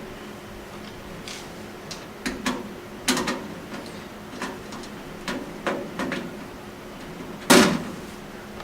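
Handling noises on a steel computer case as the two screws holding its side cover are taken out with a screwdriver: a string of short clicks and knocks, then one loud knock near the end.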